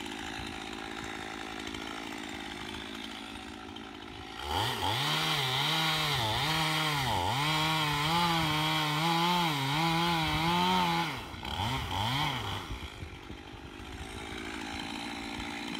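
Stihl two-stroke chainsaw idling, then throttled up about four seconds in to cut through an oak log for about six seconds, the engine pitch dipping and recovering again and again. After a couple of short blips it drops back to idle.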